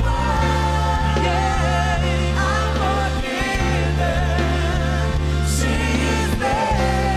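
A choir singing a gospel-style worship song over a band, with long held bass notes underneath.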